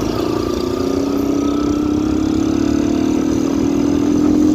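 Yamaha XTZ motorcycle engine, running without an air filter and with a washer fitted in the exhaust, pulling under acceleration, its pitch and loudness rising slowly and steadily.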